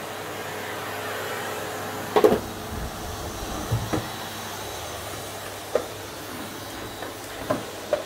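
Canister vacuum cleaner running steadily, with a handful of sharp knocks over it, the loudest about two seconds in.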